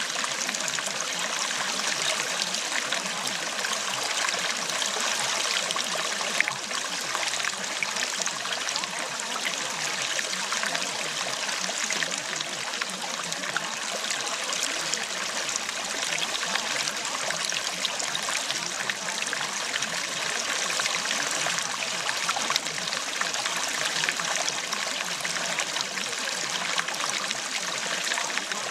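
Steady sound of running water, like a babbling brook, holding an even level throughout.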